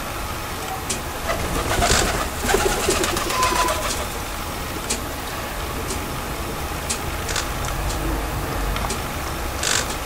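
European goldfinch pecking and cracking thistle seeds at a plastic tube feeder: scattered sharp clicks, with a denser, louder run of them about two to four seconds in.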